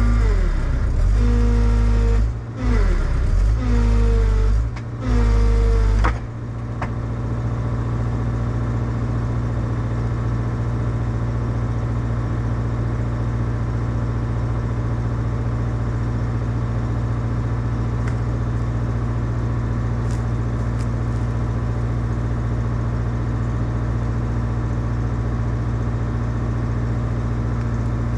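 Tracked excavator's diesel engine working hard, with several falling pitch sweeps and brief dips in the first six seconds, then running steadily at an even pitch.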